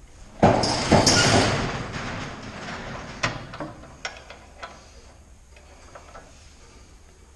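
A burst of metal rattling as a heavy steel chain is handled and moves, fading over a couple of seconds, then a few separate clanks of the chain.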